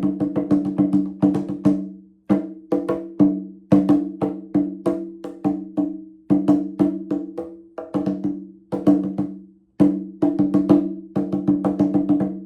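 Music played on a pitched percussion instrument: quick, unevenly spaced strikes, each ringing on the same two low notes and fading before the next.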